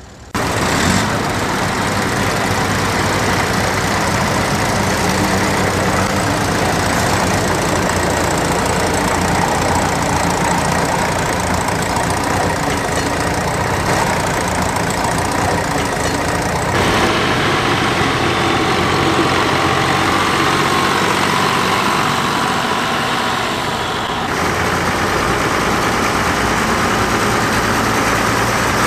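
Vintage tractor engines running steadily under load while ploughing, in several joined clips with sudden changes about 17 and 24 seconds in. The last clip is a Roadless 115 four-wheel-drive tractor.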